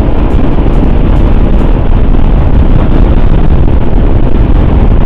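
Motorcycle cruising at about 100 km/h, heard as a loud, steady wind rumble on the rider's microphone with engine and road noise underneath.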